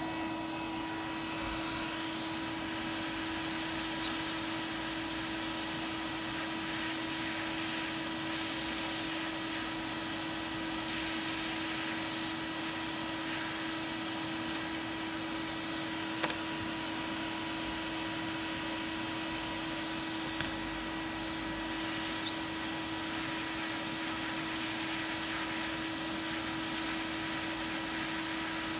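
Hot air rework station blowing, a steady hiss of air with a constant hum under it, as it heats a chip on a circuit board to free it from its solder.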